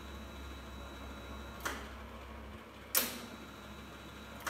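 Elektra Beckum MIG welder running gasless flux-cored wire, its arc sputtering with sharp cracks about a second and a half apart over a low hum rather than burning steadily. This is the sign of an irregular wire feed, which shoots wire and then starves it until the wire sticks.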